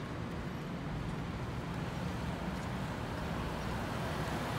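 Street ambience: a steady low rumble of traffic.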